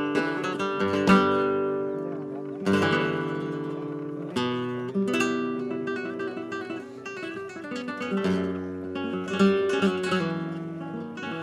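Background music: an acoustic guitar strumming chords, with sharp strokes every second or two between held notes.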